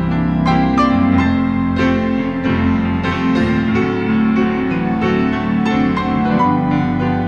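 Organ and piano playing Christmas music together: long held chords underneath, with struck piano notes several times a second.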